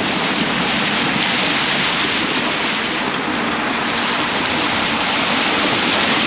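Loud, steady rushing noise with no breaks or distinct events, like wind or surf.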